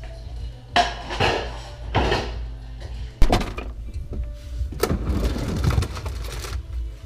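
Kitchen handling sounds: dishes and containers knocking on a counter, with a sharp knock a little after three seconds in, then items being moved about in an open refrigerator.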